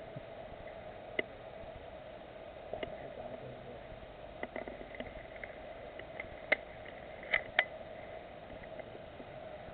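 Scattered sharp snaps of airsoft fire, about seven in all, the loudest coming close together in the second half, over a steady low hum.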